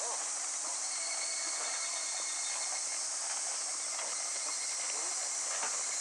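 Steady high drone of insects in an outdoor arena, with a few faint soft hoof-falls of a trotting horse on sand.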